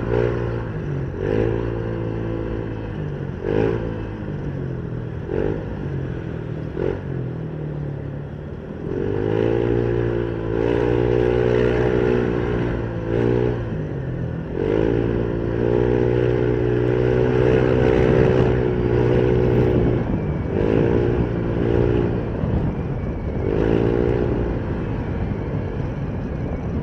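Motorcycle engine running in slow stop-and-go traffic, the throttle opening several times so the engine note rises and then eases back to a low steady run.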